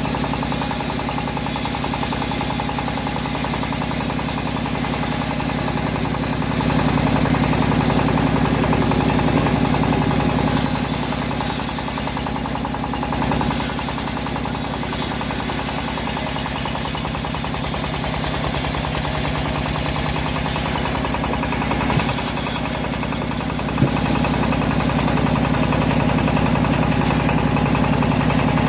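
Home-built bandsaw sawmill running through trembesi wood: a steady machine drone that grows louder for a few seconds about a quarter of the way in and again near the end. Two short sharp knocks come about three quarters of the way through.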